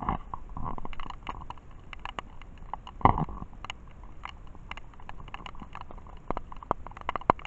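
Raindrops striking the camera: irregular taps and clicks over a steady rain hiss, with one louder knock about three seconds in.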